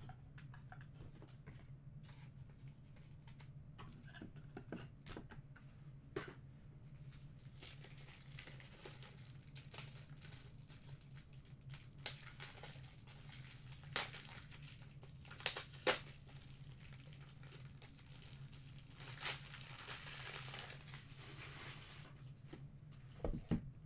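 Crinkly plastic packaging being handled and crumpled, quiet and intermittent at first, then busier with several sharp clicks through the middle and latter part, over a low steady hum.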